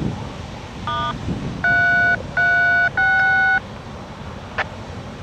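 Three touch-tone (DTMF) keypad beeps of about half a second each, the third slightly different in pitch from the first two, preceded by a brief electronic chirp about a second in. A single sharp click follows, over low wind noise on the microphone.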